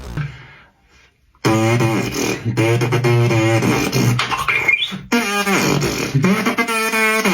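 Music track with a loud, warbling, voice-like melody that starts after a short pause about a second and a half in, with a brief break near five seconds.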